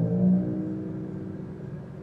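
Deep struck percussion note ringing out and fading steadily, its low tones gliding slightly upward.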